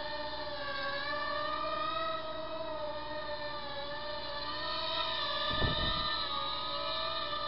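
Eachine QX90C micro quadcopter's motors and propellers whining steadily, the pitch wavering up and down as the throttle is worked to hold a hover. A brief low thump comes a little after halfway through.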